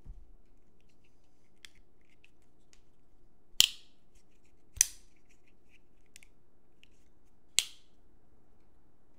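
Spyderco Native 5 lockback folding knife being worked open and shut: three sharp snapping clicks of the lockback's spine as the blade locks and folds, the second following about a second after the first and the third some three seconds later, with faint small ticks of handling between.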